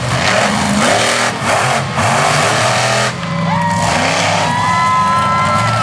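Monster truck engine revving and running, with pitch rising and falling as the throttle is worked. A high steady whine joins over the last couple of seconds.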